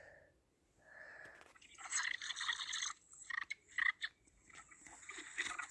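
A person sneezing: two breathy in-breaths, then a loud hissing sneeze about two seconds in, followed by a run of short wet clicks.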